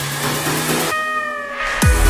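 Electronic background music. About a second in it thins out to a few slowly falling tones, then a quick downward sweep leads into a heavy bass drop near the end.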